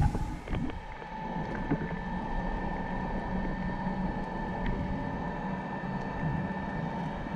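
Muffled underwater ambience heard through an underwater camera: a steady low rumble with a faint steady hum and a few faint scattered clicks.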